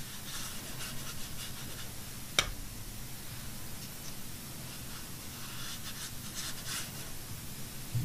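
Soft, scratchy strokes of a watercolor paintbrush on textured watercolor paper, in two short clusters, with a single sharp tap a little over two seconds in.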